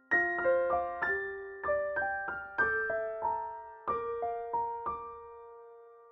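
Background music: a gentle piano melody, notes struck one after another and left to ring, fading out near the end.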